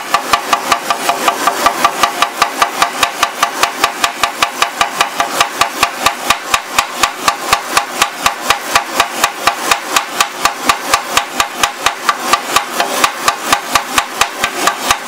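Hand hammer peening a fresh nickel weld bead on cast iron in a steady run of sharp metallic blows, about five a second. Peening is done to relieve stress so the cast iron doesn't crack. A gas torch flame hisses underneath, keeping the casting warm.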